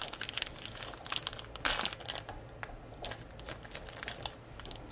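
Clear plastic bag around a wax melt crinkling as it is handled and opened: a run of quick crackles, with a denser rustle a little under two seconds in.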